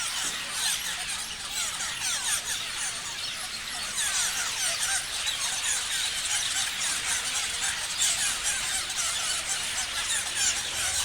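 A flock of parrots chirping and screeching together, many short, shrill calls overlapping without a break.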